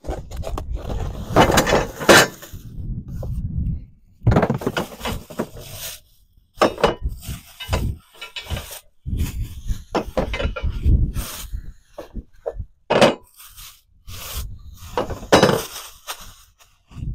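A cardboard box being opened and its packaging handled, with irregular tearing and crackling, and knocks and clinks from the metal mounting brackets inside.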